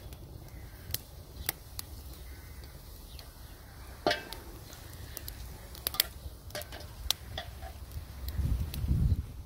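Small fire of dry twigs burning in a steel fire bowl, crackling with scattered sharp snaps. A louder crack comes about four seconds in, as more twigs are placed on the fire. A low rumble runs underneath and swells near the end.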